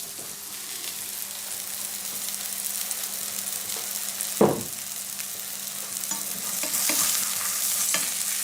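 Frozen vegan quarter-pounder patties frying in hot coconut oil in a pan: a steady sizzle that grows louder after about six seconds, with a single sharp knock about halfway through.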